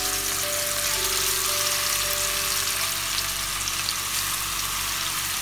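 Marinated chicken strips sizzling steadily in hot oil as they are laid into a kadai to shallow-fry, with soft background music.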